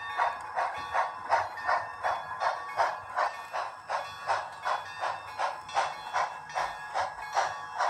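Sound-equipped HO scale steam locomotives chuffing steadily through their onboard speakers, about three chuffs a second.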